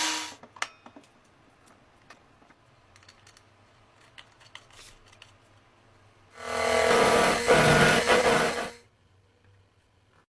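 A few faint clicks and taps, then a small motor runs with a steady, even-pitched whir for about two and a half seconds and stops.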